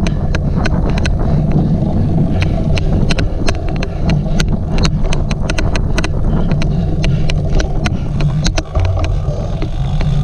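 Steady low rumble and wind on the microphone of a cyclocross bike being ridden hard over rough ground. Through it runs a string of sharp, irregular clicks, several a second: the odd clicking noise.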